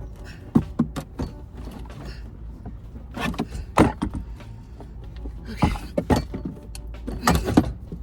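Irregular knocks, clunks and clicks of equipment being handled and shifted, a few of them sharp, over a steady low hum.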